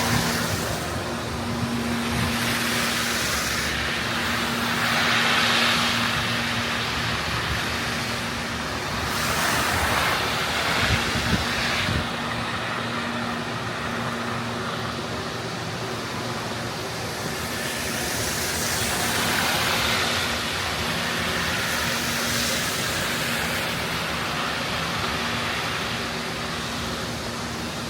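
City street traffic: vehicles passing one after another, each one a slow swell of tyre and engine noise over a steady hum.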